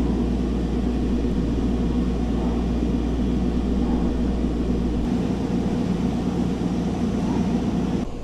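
A steady mechanical drone, like an engine running, with a deep rumble underneath that fades about five seconds in. It drops away sharply just before the end.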